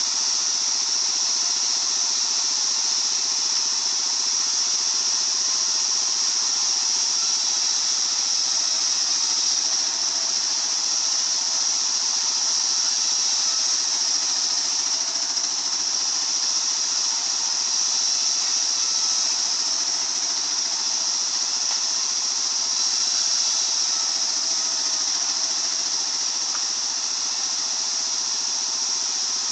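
Circular sawmill saw running steadily with a high-pitched whine, holding an even level throughout.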